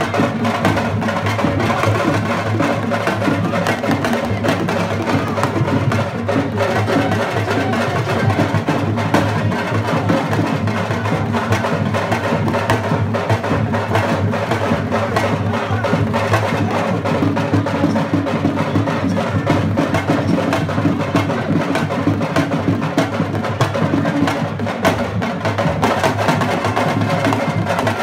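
Dance music carried by fast, dense drumming that keeps going without a break.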